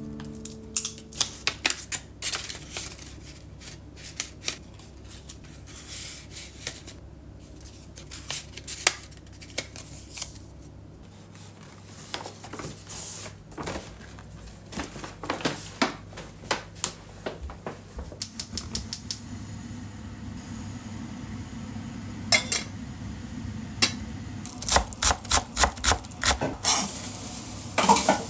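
Kitchen work sounds: utensils and dishes clinking and knocking against one another, with two runs of quick, even taps in the second half.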